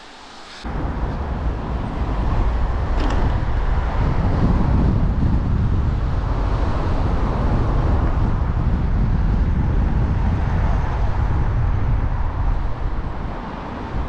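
Strong wind buffeting a handheld action camera's microphone: a loud, steady low rumble that starts abruptly about half a second in.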